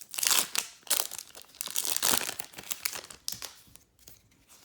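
Foil Pokémon booster pack wrapper crinkling and tearing as it is opened and handled, in a run of sharp rustles that thins out after about three seconds.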